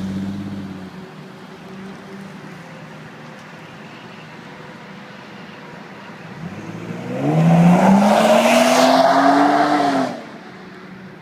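Car with a GReddy SP Elite cat-back exhaust driving by. Its exhaust note fades away in the first second, and after a few quieter seconds the car comes around again. It passes loudly for about three seconds, pitch rising as it accelerates, then drops off abruptly.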